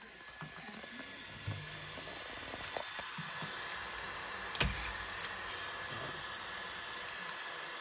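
Steady fan-like whir from a Bambu Lab X1 3D printer, with one sharp click a little over halfway through.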